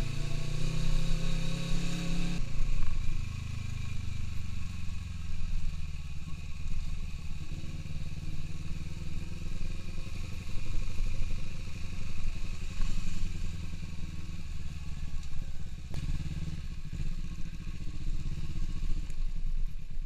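Kawasaki Z250FI motorcycle's parallel-twin engine running as the bike is ridden along, heard from the rider's seat, the engine note rising and falling with the throttle.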